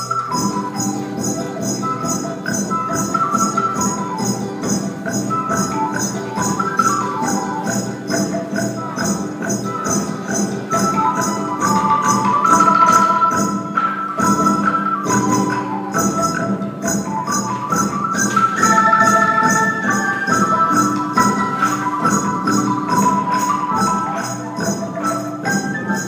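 Traditional Vietnamese ensemble music accompanying water puppetry: a stepping melody line over a quick, even percussion beat.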